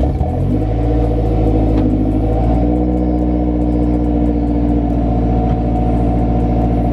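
Mazdaspeed 3's turbocharged 2.3-litre four-cylinder starting up and settling into a steady idle, heard from behind at the exhaust.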